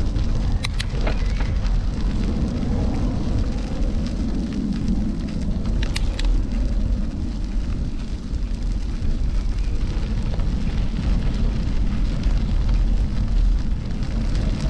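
Steady noise of riding a bicycle: wind on the microphone and tyres rolling over the path, with a couple of sharp clicks, one about half a second in and one about six seconds in.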